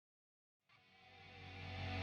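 Background music fading in from silence, growing steadily louder.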